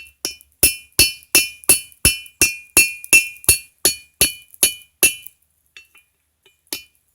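Hammer blows on the steel of an old garden hoe laid on a rusty anvil, about three ringing strikes a second, pounding the metal out flat. The blows stop about five seconds in, leaving only a few light taps.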